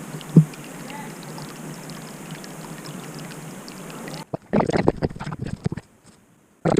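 Steady rush of a mountain creek, which cuts off suddenly about four seconds in; after it come a cluster of short knocks and rustles and one more near the end.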